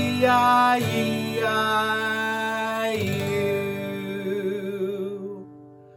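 Song music: guitar chords strummed three times and left ringing, with a singing voice; the sound dies away near the end.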